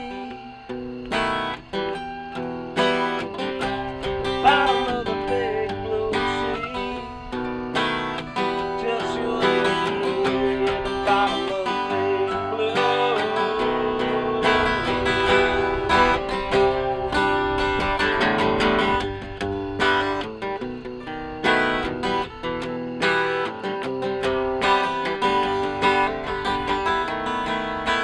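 Two acoustic guitars played together, picked and strummed in a steady instrumental.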